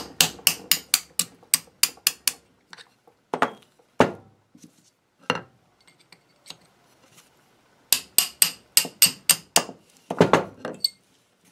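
Small ball-peen hammer tapping a steel pin punch to drive the straight retaining pin for the nut out of a York 100 vise's cast body. It goes as a quick run of light metallic taps, about five a second, then a few single taps. After a pause comes a second quick run near the end, as the pin comes free.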